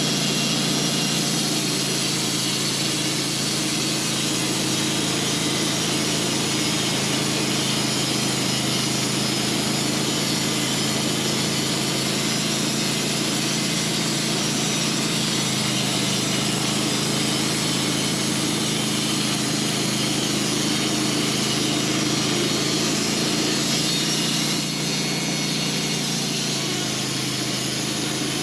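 Sawmill engine running steadily under load as the blade cuts through a large honey locust log, its note shifting slightly about halfway and easing a little near the end.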